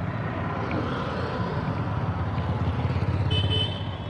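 Passing road traffic: a motor vehicle engine's low rumble that swells slightly toward the end, with a short high-pitched tone a little past three seconds in.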